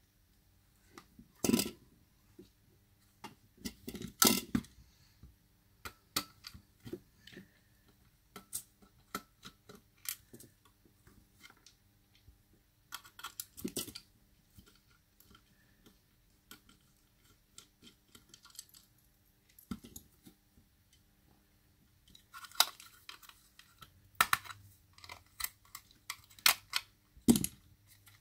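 Hard plastic parts of a Sonoff S20 smart plug's housing and a small screwdriver being handled on a workbench: irregular clicks, knocks and light scrapes as the case is taken apart. The clicks come thickest near the end.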